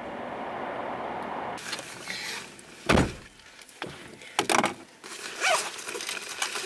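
Steady hiss, then a run of clicks and knocks with one loud thump about three seconds in, like a car door being shut and the car being handled.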